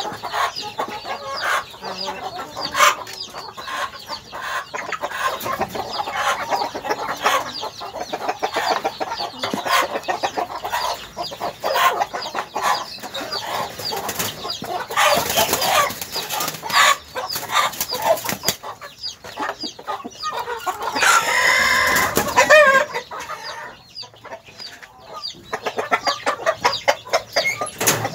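A flock of hens clucking continually, mixed with many small clicks and scuffles. About three-quarters of the way through, one bird gives a louder, drawn-out call.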